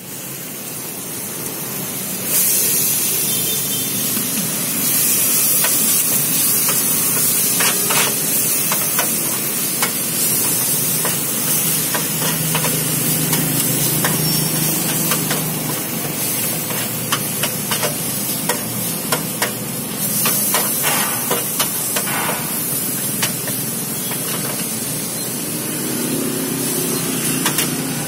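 Meat and noodles sizzling in a wide flat steel pan over a gas burner, with a metal spatula scraping and clinking against the pan. The sizzle gets louder about two seconds in, and the clinks come more often in the second half.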